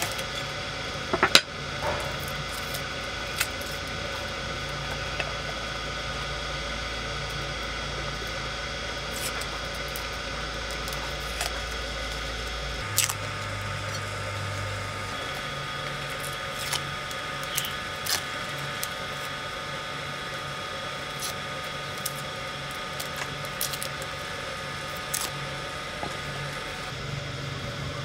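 A cleaver striking a thick wooden chopping block: a sharp double knock about a second in, then scattered lighter knocks and clicks over a steady background hiss and hum.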